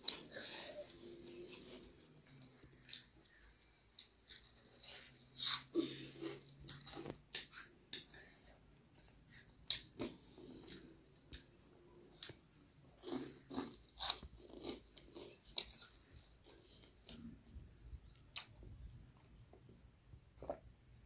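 Close-up eating sounds of spicy puffed cheese-ball snacks: scattered sharp crunches and mouth clicks as they are bitten and chewed, over a steady high-pitched hiss.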